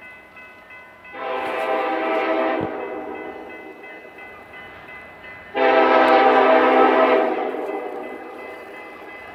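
Union Pacific freight locomotive's air horn sounding two long blasts about four and a half seconds apart, each a loud multi-note chord that fades out after a second or two: the opening of the long-long-short-long warning for a grade crossing.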